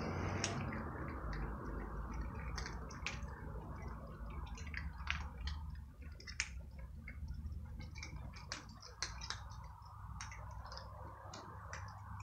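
Several cats crunching dry kibble: a scatter of short, irregular crisp clicks. A low steady rumble runs underneath.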